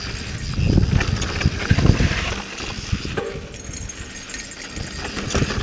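Yeti SB4.5 mountain bike descending a rough dirt trail: the chain, drivetrain and frame rattle and clatter over the bumps, with a low wind rumble on the microphone, loudest in the first two seconds.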